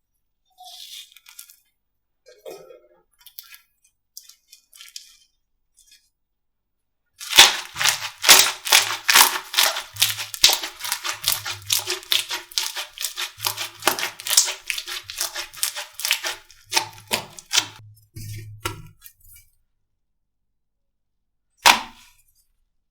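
Slime being pressed and worked by hand: soft sticky rustles at first, then about twelve seconds of rapid, loud crackling pops of trapped air, and one last sharp pop near the end.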